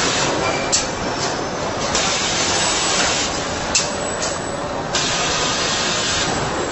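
Car assembly-line machinery noise: a steady mechanical din with bursts of hissing air that start and stop abruptly, and two sharp clicks.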